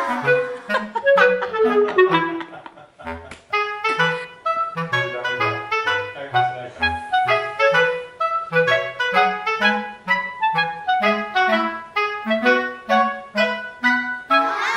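Background music: a light, bouncy tune with a woodwind lead over short, evenly paced bass notes, including a quick falling run about a second in.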